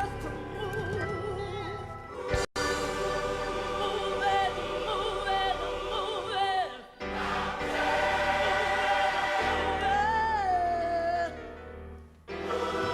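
Gospel choir singing with band accompaniment, the voices in stacked, wavering sustained notes. The phrases break off briefly about two and a half, seven and twelve seconds in, and one long held note slides downward near ten seconds.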